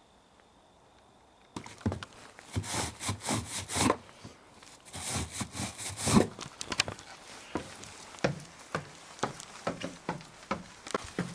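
Footsteps climbing the wooden stairs of a fire lookout tower: boots knocking and scuffing on the treads, starting about a second and a half in, with a steady tread of about two to three steps a second toward the end.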